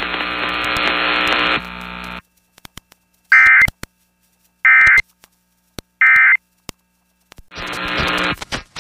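Emergency Alert System end-of-message tones: three short bursts of warbling data tones, about a second apart, closing the Amber Alert broadcast. Before them, a hiss with a low hum runs for about two seconds and cuts off. Near the end the hiss comes back with scattered clicks.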